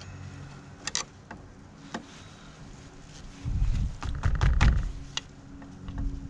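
Sharp metal taps on a corroded battery terminal clamp being knocked sideways to spread it open: single taps about one and two seconds in, then a louder cluster of taps with handling rumble around the middle.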